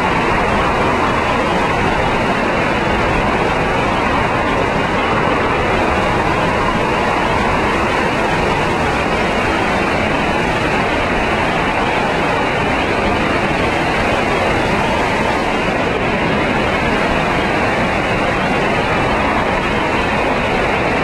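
Hurricane eyewall wind blowing at a steady, loud level, with gusts close to 130 mph, heard from inside a building through an open doorway.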